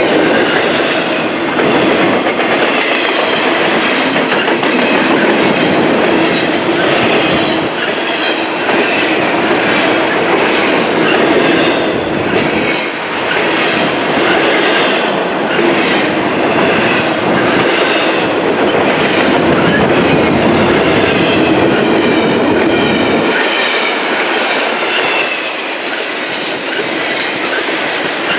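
Double-stack intermodal freight train's well cars rolling steadily past close by, wheels clicking over rail joints, with faint wheel squeal. The low rumble drops away about 23 seconds in.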